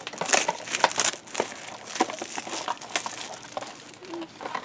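Blind-box packaging being torn open by hand, with cardboard and wrapping crinkling and crackling in quick, irregular bursts, thickest in the first second.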